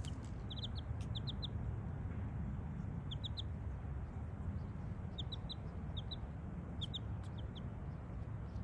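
Young miniature chickens peeping in quick runs of short, high chirps, several bursts over a steady low rumble.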